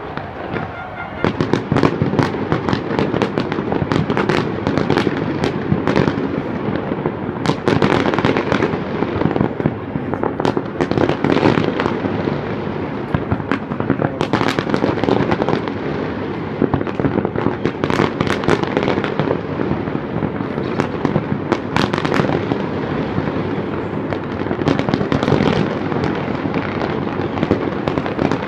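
Fireworks display: a dense, continuous barrage of sharp bangs and crackling pops in quick succession, starting about a second in and keeping up throughout.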